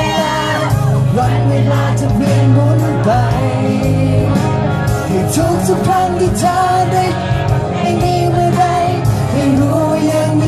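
Live pop song: male singers singing over a backing track with bass and beat, played loud through a PA.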